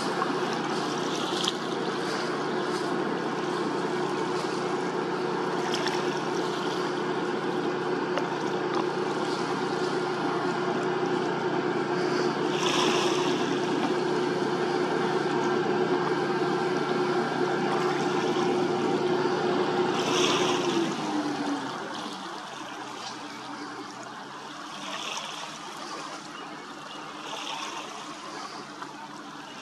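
Tugboat engine running steadily under power, then throttled back about two-thirds of the way through, its pitch falling and the sound getting quieter.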